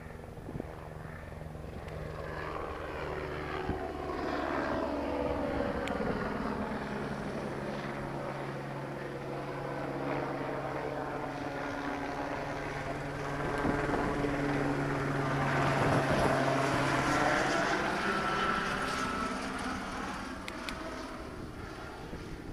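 Helicopter passing overhead, its rotor and engine growing louder to a peak about two-thirds of the way through and then fading, with the pitch bending as it passes. Underneath is the rolling tyre noise of a mountain bike on a dirt track.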